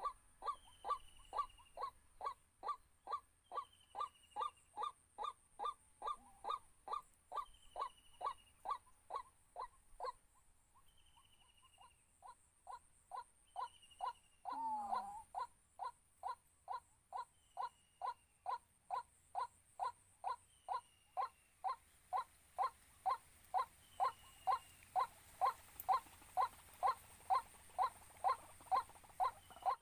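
White-breasted waterhen calling: a hollow note repeated steadily about twice a second, breaking off briefly about ten seconds in and then resuming. A thin falling whistle repeats above it every second or two, and a short harsh squawk comes about fifteen seconds in.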